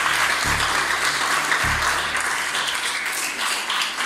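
A group of people applauding, a dense steady clatter of clapping, over background music with deep bass notes that stop about halfway through.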